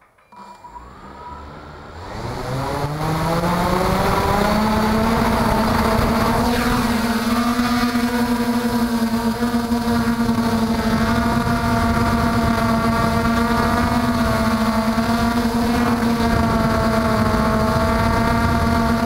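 MJX Bugs 3 quadcopter's four brushless motors spinning up from rest, the pitch rising over the first few seconds, then a steady, loud propeller hum and whine as the drone lifts off and flies. The pitch wavers slightly as the motors adjust.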